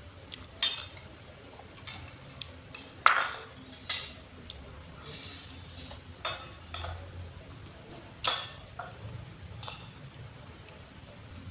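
Cutlery clinking against a plate while eating: several sharp clinks with short ringing tails, spread irregularly, between quieter scrapes and ticks.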